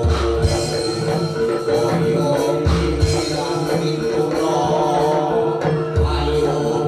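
Live Javanese jaranan gamelan music: hand drums beating over a steady held tone, with deep low strikes every few seconds.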